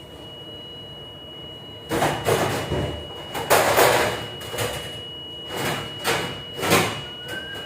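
Commercial galley dishwashing area: a steady high machine whine under several irregular loud bursts of sliding and clattering noise, the loudest about three and a half seconds in.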